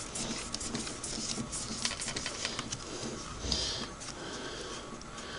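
Cloth rag rubbing and wiping against the metal parts around the worm gear and cam stack inside a Singer 513 sewing machine: a steady scratchy rustle with many light clicks.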